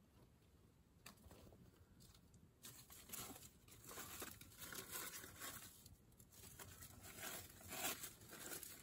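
Gloved hands scraping and rustling in dry, dusty dirt: soft, irregular scratching that starts about two and a half seconds in and comes in uneven bunches, loudest near the end.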